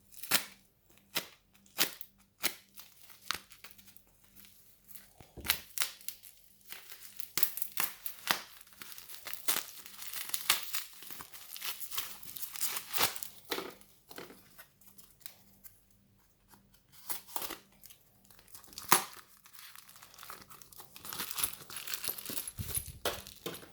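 Parcel packaging being cut open with a knife and torn apart, with the wrapping crinkling and rustling and many short sharp clicks and snaps.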